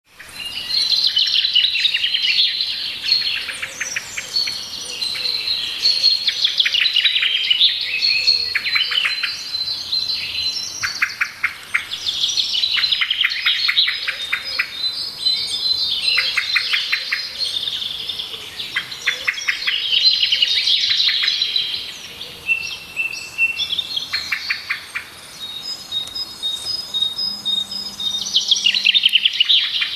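Several birds chirping together in a dense chorus: repeated bursts of quick trilled notes overlapping with high, thin whistled calls.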